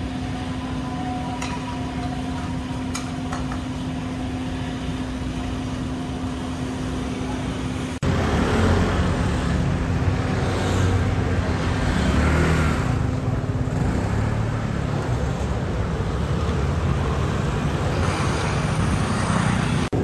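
Street ambience with a steady low hum, then, after a sudden cut less than halfway through, louder road traffic of scooters and cars passing.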